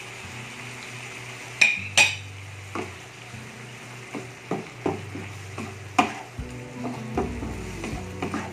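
Diced chicken breast sizzling in a nonstick frying pan as it is stirred with a wooden spatula, with tomato sauce just added. Sharp knocks of the spatula ring out, loudest twice about a second and a half to two seconds in and once about six seconds in.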